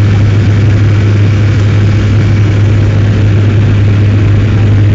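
Airliner cabin noise in flight: a loud, steady drone of engines and rushing air, with a strong low hum underneath.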